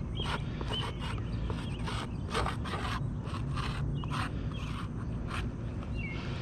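Short, irregular scrapes on roof shingles, about two a second, during a shingle repair, with faint bird chirps in the background.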